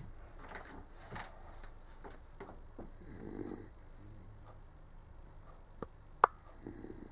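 Sleeping dog snoring, two slow snores about three and a half seconds apart, with soft breathing between. A single sharp click comes just before the second snore.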